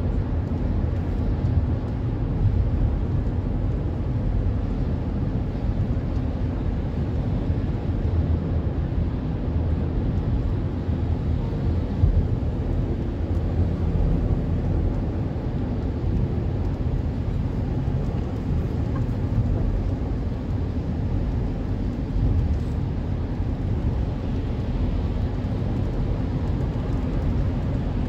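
Steady road noise inside a moving car's cabin: tyres rolling on a wet highway with a low engine and wind rumble.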